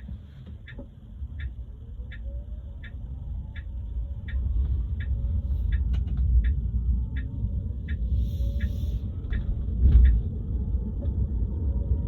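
Cabin sound of a Tesla Model 3 driving at low speed: road rumble that grows as the car picks up speed, with a faint motor whine rising in pitch. A regular ticking runs at about one and a half ticks a second. About ten seconds in comes a single low thump, the thump noise the car is being recorded for.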